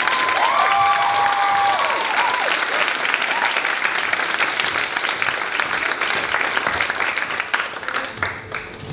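Audience applauding, with a few high, held calls from the crowd over the first couple of seconds. The clapping thins out and dies away near the end.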